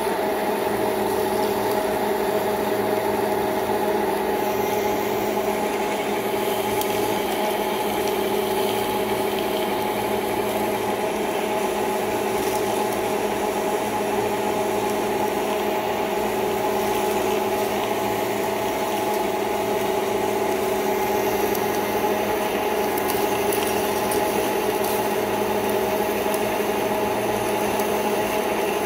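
1616 screw-cutting lathe running under load while a large twist drill in the tailstock bores into a spinning metal backplate blank. Its geartrain gives a steady hum made of several held tones over a constant cutting hiss, with no change in speed.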